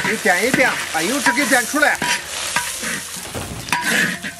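Food sizzling in hot oil in a wok while a metal spatula stirs it, with sharp clicks of the spatula on the pan. A pitched, voice-like sound runs over the first two seconds.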